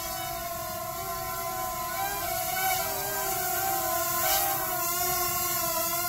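Parrot Swing mini quadcopter's four electric motors and propellers whining in flight. The pitch wavers up and down from about two seconds in as the motors speed up and slow down to manoeuvre, and the whine grows a little louder as the drone comes close.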